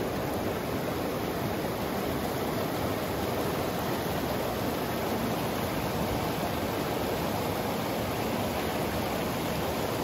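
Creek water rushing steadily over a shallow rocky riffle.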